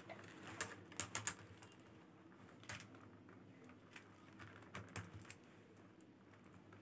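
Faint, irregular clicking of faceted plastic beads knocking against each other while a beaded bag is handled and stitched, with a few clicks close together about a second in.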